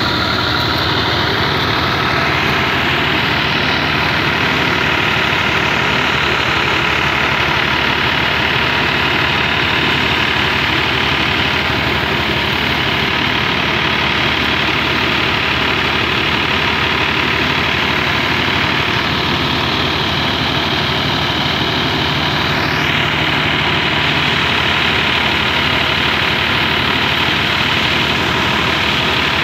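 New Holland 480 tractor engine running steadily under load while driving a wheat thresher through its PTO shaft. The threshing drum whirs with it as wheat is fed in.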